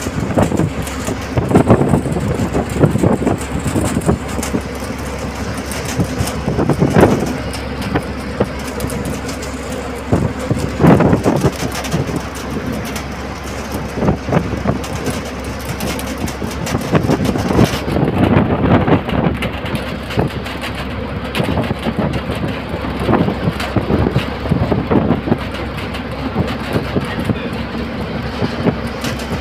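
A state-transport bus running at speed, heard from inside: steady engine, road and wind noise with frequent sharp knocks and rattles.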